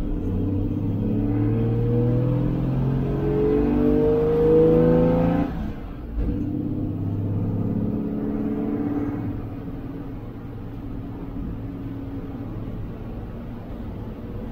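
1966 Dodge A100's slant-six engine heard from inside the cab, pulling hard with its pitch rising for about five seconds. The note breaks off briefly for an upshift, then the engine pulls again and settles to a steadier cruise.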